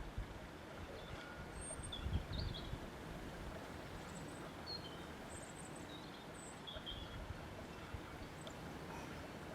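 Wind blowing in uneven gusts, a low rumble that surges about two seconds in, with about ten short, high bird chirps scattered through.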